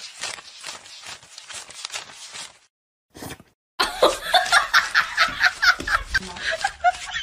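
A stack of paper banknotes flicked rapidly through someone's fingers, a quick fluttering rustle for the first two and a half seconds. From about four seconds in, a person laughs in quick bursts.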